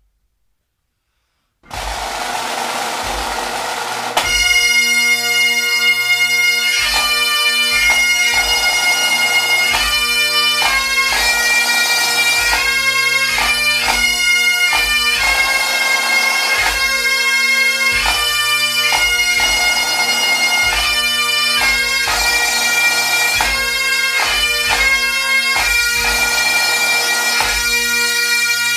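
Bagpipes playing a tune over steady drones. They start about four seconds in, after a moment of silence and a short stretch of hiss.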